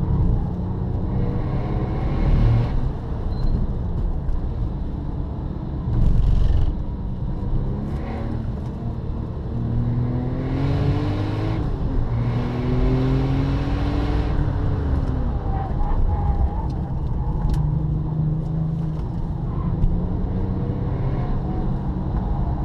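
Porsche 997 Turbo's twin-turbo flat-six through a Cargraphic exhaust, heard from inside the cabin while driving hard on track, its note repeatedly rising and falling as it pulls through the revs and changes gear.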